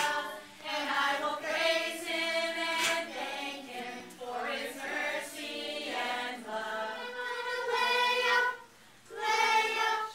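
Group of children and adults singing a song together in sung phrases with held notes, with a short break near the end before the next line.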